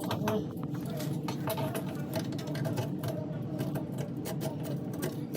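Irregular small clicks and taps of a sink pop-up drain's pivot rod and fittings being handled and worked into place, over a steady low hum.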